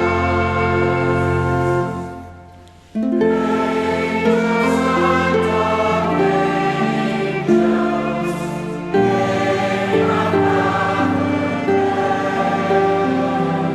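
Choir singing with instrumental accompaniment. The music fades out about two seconds in and a new passage starts abruptly about a second later.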